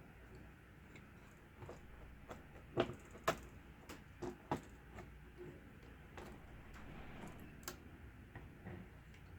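Faint, irregular clicks and taps of small parts being handled inside an opened laptop, with a couple of sharper clicks about three seconds in.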